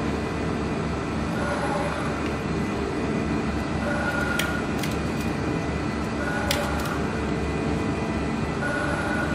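Lanyard roller heat transfer machine running with a steady mechanical rumble and hum, and two brief clicks, about four and a half and six and a half seconds in.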